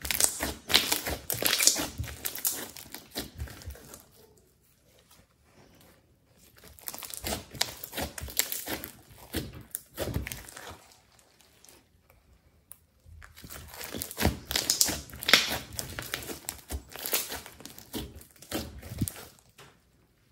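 Thick glossy slime being squeezed, poked and stretched by hand, giving dense crackling and squishing. It comes in three bouts of about five seconds each, with short quieter pauses between.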